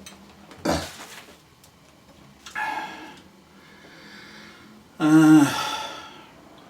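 A domestic cat meowing twice, the second meow louder and about five seconds in, with a short knock near the start.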